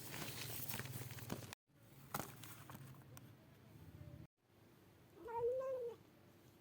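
A cat meows once near the end, one call that rises and falls in pitch. Earlier there is rustling and crinkling, cut off abruptly twice.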